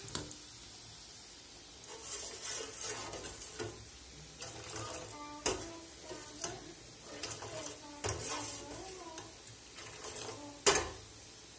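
Fried dough rings sizzling in hot oil, with a wire skimmer and then a steel ladle stirring, scraping and pouring in metal pans. Two sharp knocks of metal on metal, one about halfway through and a louder one near the end.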